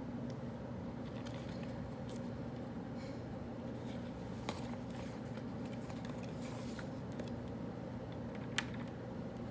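Steady low hum of study-café room ventilation, with scattered faint clicks and rustles of pen and paper while solving problems, and one sharper tap near the end.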